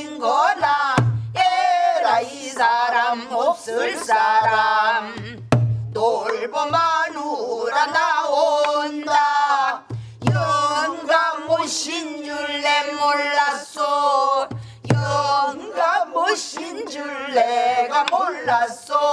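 Pansori singing: one voice in long, wavering phrases, with a buk barrel drum struck in an uneven rhythm, giving low thumps from the drumhead and a few sharp cracks of the stick on the wooden rim.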